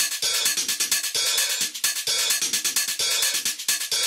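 Background music with a steady electronic drum beat and hi-hats.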